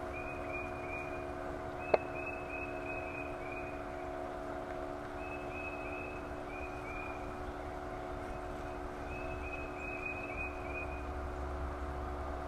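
Runs of four or five short, high chirps, repeating every second or two over a steady low hum, with one sharp click about two seconds in.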